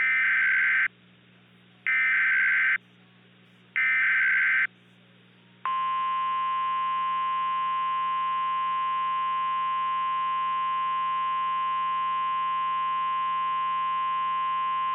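Emergency Alert System SAME header: three short bursts of buzzing digital data tones, about a second apart. About five and a half seconds in, a steady, unbroken EAS attention tone begins.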